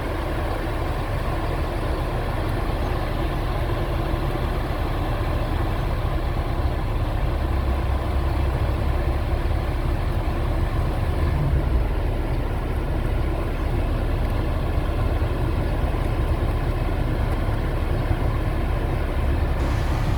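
Car engine idling steadily, a low rumble with an even hiss over it.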